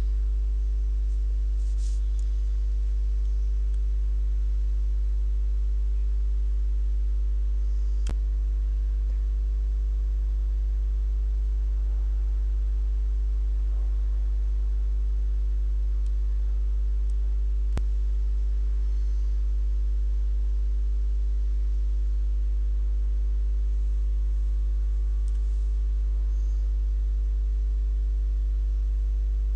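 Steady low electrical hum with a ladder of fainter higher overtones, typical of mains hum picked up by the recording. Two faint clicks come through, one about a quarter of the way in and one past the middle.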